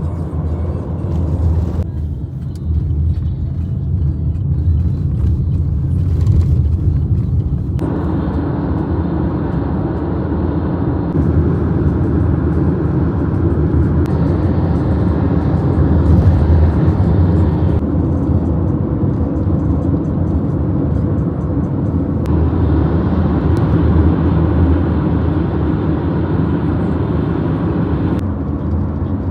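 Road noise heard inside a moving car: a steady low rumble of engine and tyres, which grows brighter and hissier about eight seconds in.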